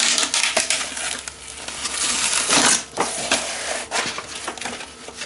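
Cardboard infill pieces being handled and pulled about: a run of rustling and scraping with many light clicks and knocks.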